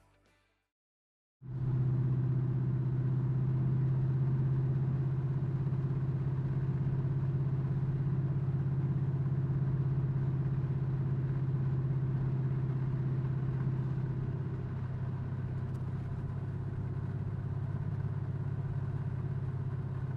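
Car engine running steadily while the car cruises, a low even drone that starts about a second and a half in and eases slightly near the end.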